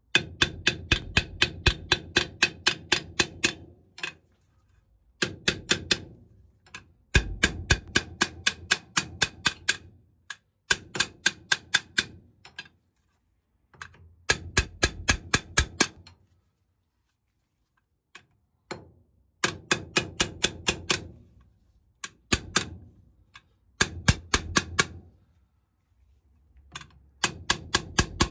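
Claw hammer tapping metal in quick runs of about four blows a second, each blow ringing, with short pauses between the runs: an SKF Speedi Sleeve being driven onto a worn wheel-hub seal shaft.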